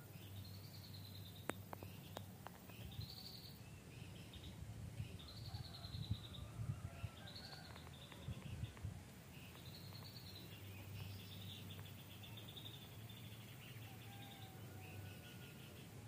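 A small songbird's rapid chattering song: a short phrase of fast notes, rising then falling, repeated about every one and a half seconds, faint over a low rumble.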